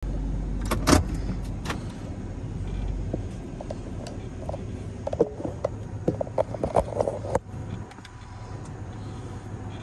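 Pickup truck running, heard from inside the cab: a steady low rumble with a few sharp knocks and clicks, a loud one about a second in and a cluster of rattling clicks about five to seven seconds in.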